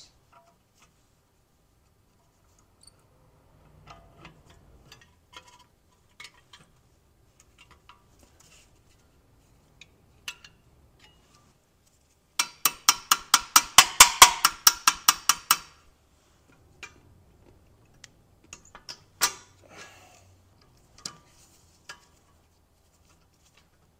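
Metal hand tools clicking and tapping against BMW E46 parking brake shoes and their spring hardware. About halfway through comes a quick, even run of about twenty sharp metallic clicks, roughly six a second, and a few louder single clicks follow.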